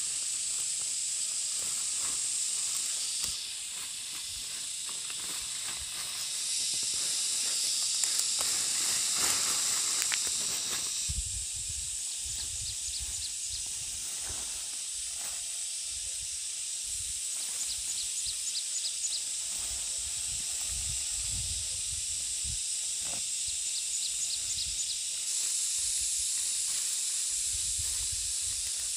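Steady high-pitched outdoor hiss that shifts level abruptly a few times, with short runs of rapid ticks now and then and low rumbles from about eleven seconds in.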